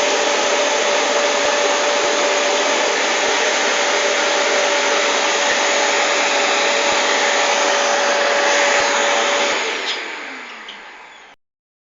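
Vacuum cleaner running with a steady whine. About ten seconds in it is switched off and the motor winds down, falling in pitch and fading away.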